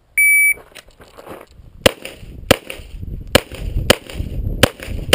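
An electronic shot-timer beep sounds for about a third of a second as the start signal. About a second and a half later a 9mm pistol fires about six rapid shots, roughly half a second to a second apart.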